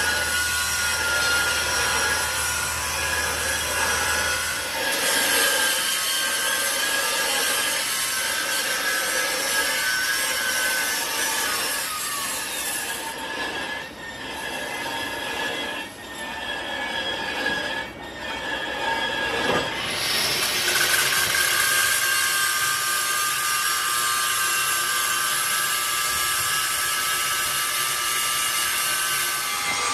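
Machine tool cutting metal: a steady high squeal over a harsh grinding noise, with a few short dips around the middle and a change in tone about twenty seconds in.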